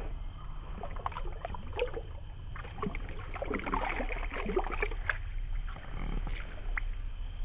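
Footsteps wading through shallow, muddy floodwater: irregular splashing and sloshing as the legs push through the water, busiest in the middle.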